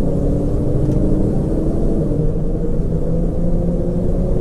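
Bus engine running at low road speed: a steady low drone with a faint pitch that rises slightly about a second in.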